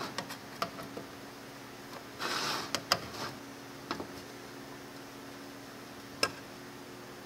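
Lid of a metal paint can being pried open with a screwdriver and lifted off: a series of light metallic clicks and taps around the rim, a short scrape about two seconds in, and one sharp click about six seconds in.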